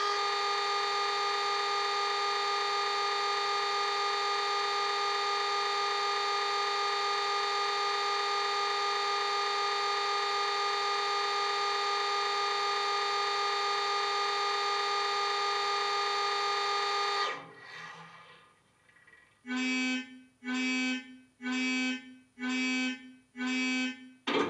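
A steady chord of tones held for about seventeen seconds, then fading out. Then five evenly spaced beeps about a second apart from a model Class 66 locomotive's DCC sound decoder.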